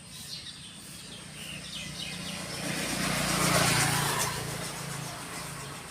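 A motor vehicle passing: its engine grows louder to a peak about three and a half seconds in, then fades. Small birds chirp behind it.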